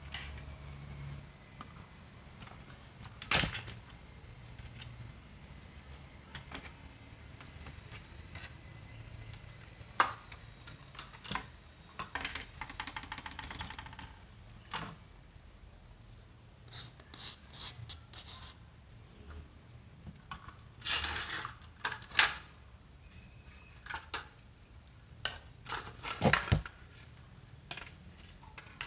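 Scattered clicks and knocks of small plastic and metal radio parts being handled on a workbench, with one loud knock about three seconds in and a short rapid clicking rattle near the middle.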